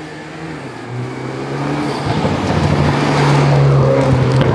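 BMW 328i's turbocharged four-cylinder engine as the car drives up and passes close by. Its steady engine note and tyre noise grow louder, peaking about three to four seconds in.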